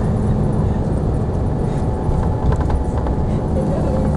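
Steady low rumble of a moving vehicle's engine and road noise, heard from inside the vehicle, with a few light rattling knocks a little past halfway.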